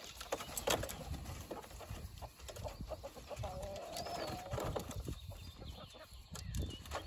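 Hens coming out of a coop, hopping down its wooden ramp with wing flaps and scattered knocks of feet on the boards. About halfway through, one hen gives a drawn-out, wavering call lasting about a second.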